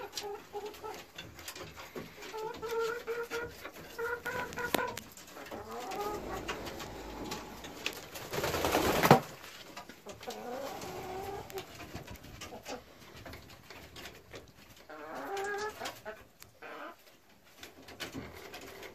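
Brown laying hens calling, a series of short drawn-out notes repeated several times. A loud rustling noise swells about eight seconds in and stops abruptly a second later.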